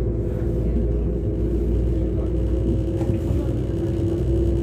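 Class 195 diesel multiple unit heard from inside the carriage: its underfloor MTU diesel engine and transmission running under power, with a steady whine that rises slightly in pitch over the low rumble of the train on the move.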